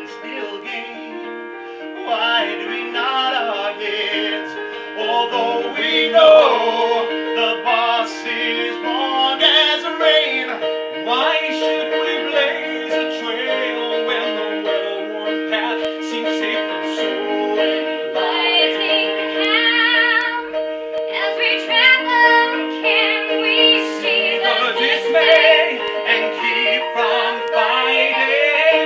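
A man singing a musical theatre song live over steady sustained chords from the accompaniment.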